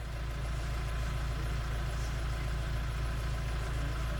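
Safari vehicle's engine idling, a steady low hum.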